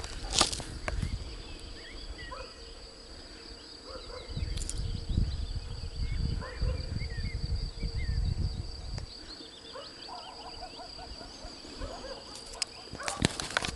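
Rural outdoor ambience: scattered short bird chirps and calls over a steady faint high tone. A low rumble comes in between about four and nine seconds in, and a few sharp knocks sound near the start and near the end.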